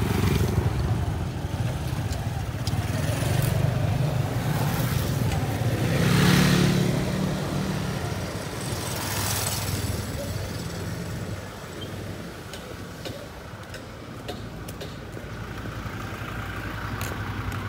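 Roadside traffic: a small motorcycle riding past and other vehicles going by, with a steady low engine rumble that swells louder about six seconds in and fades toward the end.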